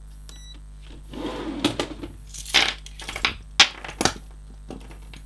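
Steel chain and cuffs of Peerless Model 503 leg irons clinking and rattling as they are handled. The rattles come irregularly, with a sharp metallic clack about three and a half seconds in.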